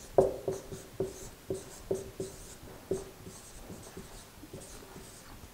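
Marker writing on a whiteboard: a string of short strokes and taps, many with a faint squeak, coming about twice a second and growing softer after about three seconds.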